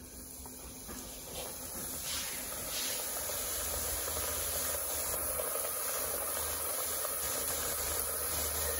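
Strips of flour dough deep-frying in hot oil in an electric deep fryer: a steady sizzling hiss that builds over the first couple of seconds as the dough goes in, then holds.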